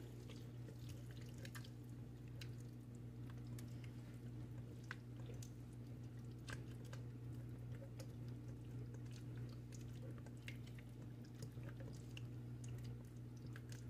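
Spatula stirring a thick mayonnaise dressing with chopped egg and pickles in a stainless steel bowl: faint wet squelching with scattered light ticks and scrapes against the metal. A steady low hum runs underneath.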